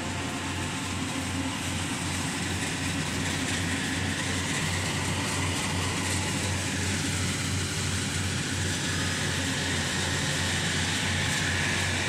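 Rice combine harvester running steadily as it harvests: a constant low engine hum under an even rushing noise.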